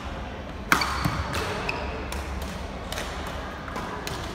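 Badminton rally: a sharp racket strike on the shuttlecock about a second in, the loudest sound, followed by lighter knocks and clicks of play, all echoing in a large hall.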